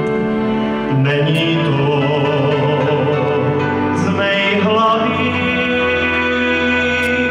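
Cimbalom band playing a folk song: violins, clarinet, cimbalom and double bass, with a male voice singing.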